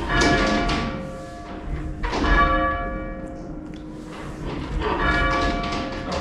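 Church tenor bell, from an 1896 Mears & Stainbank ring of eight, rung full circle: three strokes, about two to three seconds apart, each ringing on with a fading hum.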